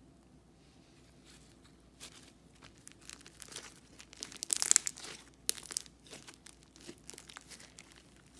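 Blue slime squeezed and stretched by hand, giving dense crackling, sticky popping and tearing sounds that start about two seconds in and are loudest about halfway through.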